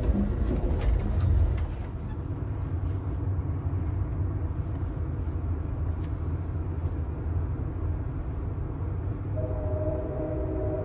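Moving passenger train's steady low rumble, heard from inside the car, with a few knocks and clatter in the first couple of seconds. About nine seconds in, a held tone with several pitches joins the rumble.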